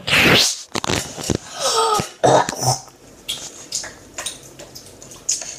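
A young girl coughing hard near the start, then a short vocal sound about two seconds in, followed by faint clicks and taps.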